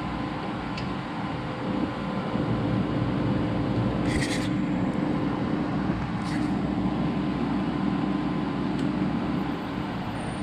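A 2x72 belt grinder running steadily, its motor and belt giving a constant hum, with two brief hissing scrapes about four and six seconds in.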